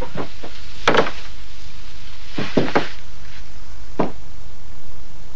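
Heavy cell door being unbolted and opened: a few irregular sharp clanks and knocks, the strongest about a second in, with a cluster of three about halfway, over a steady low hum.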